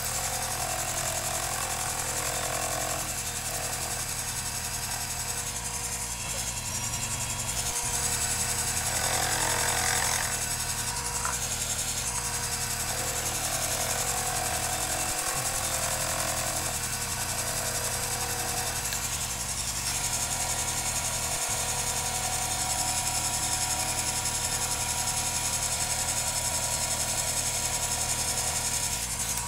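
Small benchtop metal lathe running steadily, turning a welded steel .22 rifle receiver.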